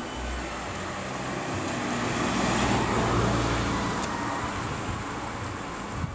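Road vehicle passing on the street, its tyre and engine noise swelling to its loudest around the middle and easing off.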